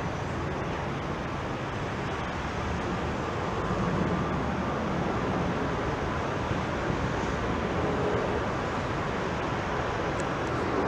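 Distant jet rumble of an Airbus A320-214's CFM56 turbofan engines as the airliner climbs overhead, a steady broad roar that grows slightly louder about four seconds in.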